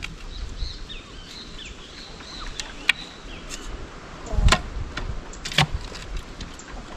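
Clamshell post-hole digger striking and biting into soil: three separate dull knocks, the loudest and deepest about four and a half seconds in. Faint bird chirps in the first few seconds.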